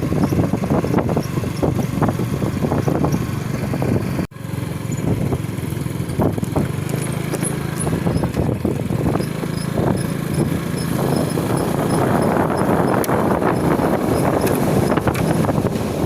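A small engine running steadily on the move, with wind buffeting the microphone. The sound drops out for a moment about four seconds in.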